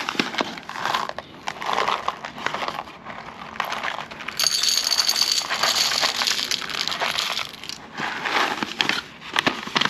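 Whole coffee beans rattling and clicking as they are poured into a coffee grinder's stainless steel bowl, with a coffee bag crinkling. The pour is densest for a few seconds in the middle, with a faint metallic ring.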